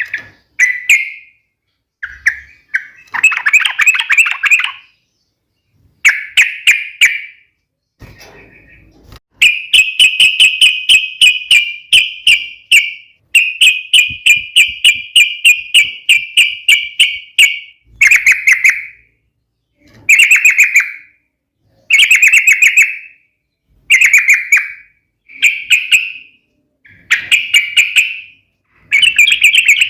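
Yellow-vented bulbul (trucuk) singing in sharp, fast chattering bursts, each about a second long with short gaps between. Around the middle come two longer runs of quickly repeated notes lasting several seconds each.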